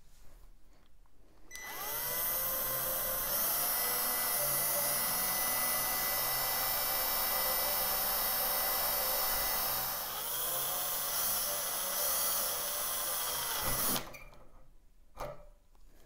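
Cordless drill boring into an aluminum rod held in a vise. The motor spins up about a second and a half in and runs steadily with a whine. Its pitch sags briefly near the ten-second mark and picks up again, and it stops about two seconds before the end.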